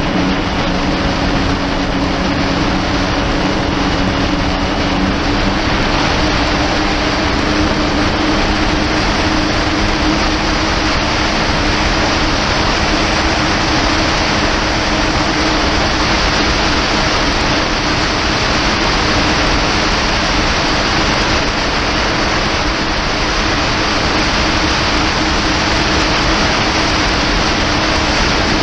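Kawasaki Ultra 300X jet ski running steadily at speed, its supercharged four-cylinder engine a low, even drone under a loud, constant rush of wind and water.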